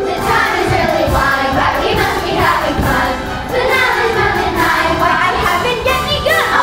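Children's chorus singing a musical number with instrumental accompaniment.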